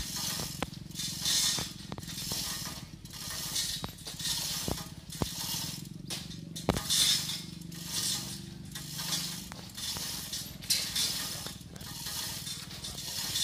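Manual chain hoist being hand-pulled to lift a hanging line-array speaker stack: a rhythmic chain-and-ratchet rattle, roughly one pull a second, with a few sharp knocks. A steady low hum runs underneath and fades out late on.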